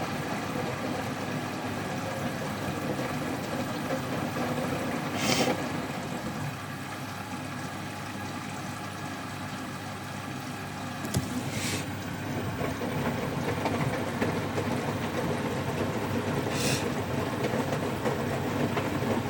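Hotpoint Active Care washing machine tumbling its drum during the rinse, with a steady motor hum and water sloshing. Three brief hissing swooshes of water come about every five to six seconds.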